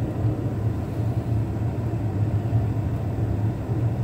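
Carrier 58MVC gas furnace running with its burners lit on medium stage: a steady low rumble of burner flame and inducer motor.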